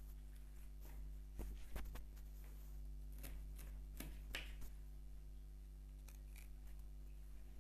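Scissors snipping through red amaranth stems while the leafy stalks are handled: scattered short snips and rustles, most of them in the middle, over a steady low hum.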